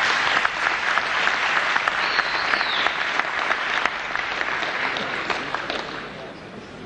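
Audience applauding, with a short high whistle about two seconds in; the clapping dies away over the last couple of seconds.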